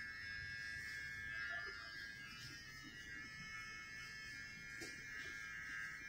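Handheld electric hair clippers running with a steady high-pitched whine while cutting a child's hair.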